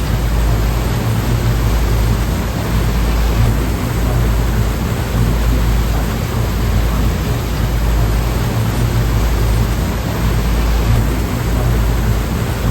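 Sea surf, a steady rushing wash of waves with a deep low rumble that swells and eases irregularly.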